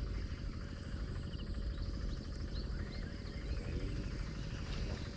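Outdoor ambience: a steady insect trill with a few faint, short, high chirps over a low rumble.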